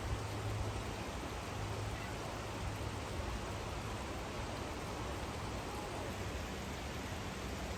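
Steady rushing of falling water from the Kuang Si waterfall cascades.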